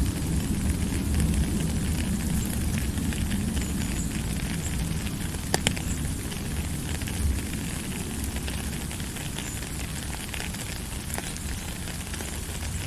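Steady low rumbling noise with scattered small crackles and pops, and one sharper pop about five and a half seconds in.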